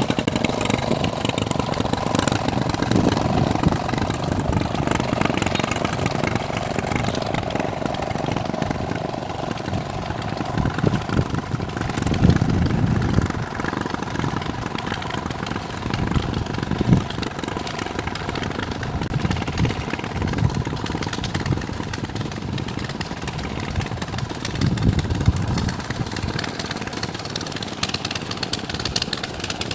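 Small boat engine running steadily, with an even, fast chug.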